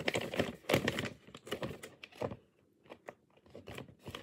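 Plastic snack pouch crinkling as it is handled, a run of irregular crackles that is loudest in the first second.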